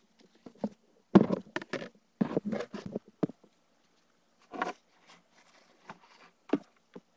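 Handling noise of a Sintra (PVC foam board) armor piece being shifted and pressed against an audio transducer on a wooden bench: a run of irregular knocks, taps and scrapes, busiest in the first half and sparser later, over a faint steady hum.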